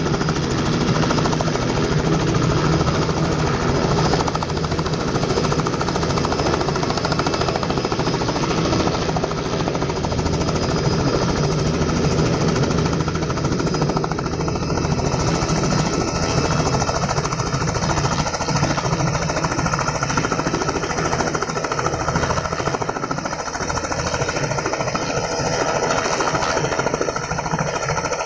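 Robinson R44 helicopter hovering close to the ground: its two-blade main rotor makes a rapid, even chop over the steady running of its piston engine, at a constant loud level.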